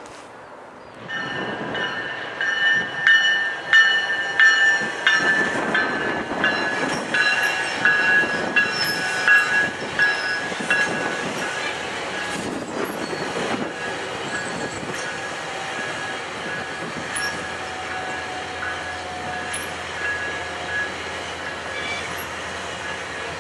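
GO Transit bilevel passenger coaches rolling past, their steel wheels squealing on the rails with a steady high squeal and clattering over rail joints. The sound starts suddenly about a second in and is loudest over the first several seconds, then settles to a steadier squeal and rumble.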